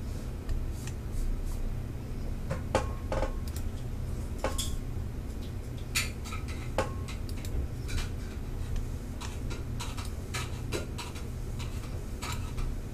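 Computer mouse buttons clicking now and then: short, sharp clicks at irregular intervals over a steady low hum.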